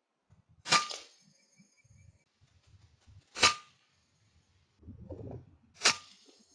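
Three shots from an FX Impact M3 .22 PCP air rifle, each a sharp crack with a brief high ringing after it, about two and a half seconds apart. Low handling noise comes just before the third shot.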